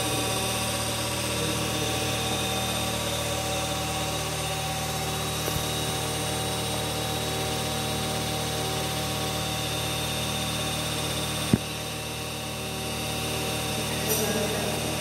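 Hydraulic power unit running with a steady mechanical hum. A sharp click comes about two-thirds of the way through, after which the sound dips and then builds back up.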